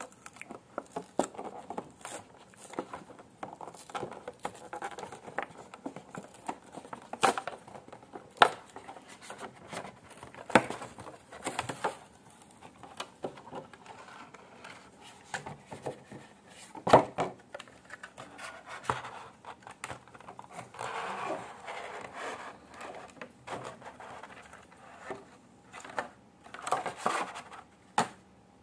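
Clear plastic blister pack and its cardboard backing card being handled and pried apart by hand: irregular clicks, taps and crinkling of the plastic, with longer spells of crinkling about two-thirds of the way through and again near the end.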